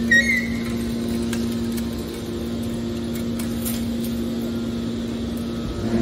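Hydraulic scrap metal baler running: a steady, even hum from its hydraulic power unit while the ram works. A brief high squeal comes right at the start.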